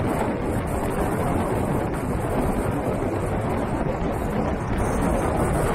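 Vehicle driving along a wet dirt road: steady tyre and road rumble with wind buffeting the microphone.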